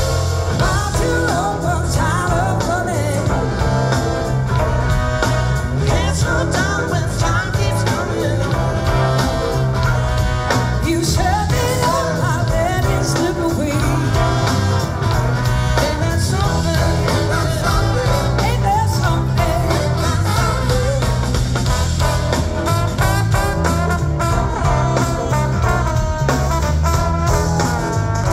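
Live blues-rock band playing through a concert PA, heard from the audience: singing over electric guitar and a strong bass line.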